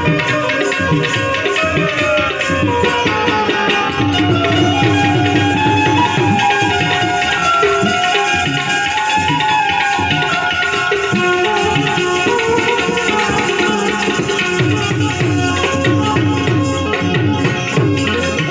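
Instrumental interlude of a Gujarati desi bhajan: harmonium playing the melody in held, shifting notes over a steady hand-drum rhythm.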